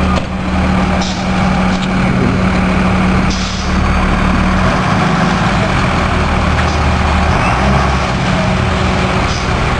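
Fire engine's engine running steadily nearby, a constant low hum and throb with no change in pace.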